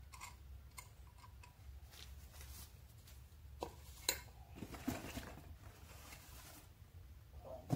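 Packing material being handled: light taps and clicks, two sharp clicks a little before the middle, then rustling of a foam sheet and plastic wrapping as parts are unwrapped.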